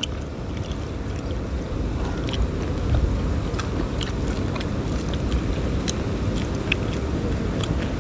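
Crunching and chewing of crisp deep-fried fish close to the microphone, a scatter of short sharp crunches, over a steady low rumble that swells over the first few seconds and then holds.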